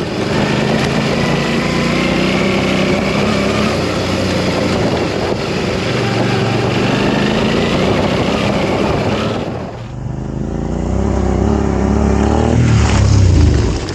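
Suzuki V-Strom 650's V-twin engine through a Delkevic exhaust, running under way with the revs rising and falling. The engine note drops briefly about ten seconds in, then climbs to its loudest near the end.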